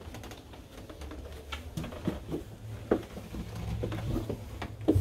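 Footsteps going down a yacht's interior staircase: soft, irregular steps and taps over a steady low hum.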